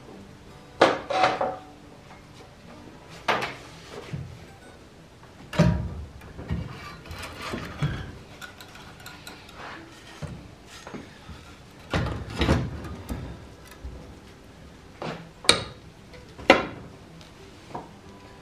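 A series of separate clunks and knocks, a few seconds apart, as a portable bandsaw is set into a homemade steel-plate table and clamped down.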